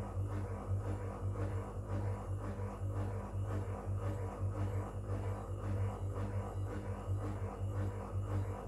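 Whirlpool FL 5065 washing machine running with a steady low hum that pulses about three times a second.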